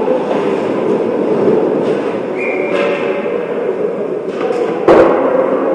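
Ice hockey play heard from beside the goal: skate blades scraping on the ice over a steady rink rumble, with one loud sharp knock near the end.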